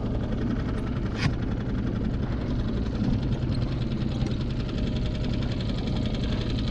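Small outboard motor of a one-person skiff running steadily, a low even drone, with one short click about a second in.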